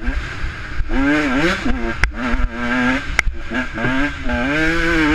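A 150 dirt bike's engine revving up and down as the throttle is opened and shut over and over through the ride, with two sharp ticks about two and three seconds in.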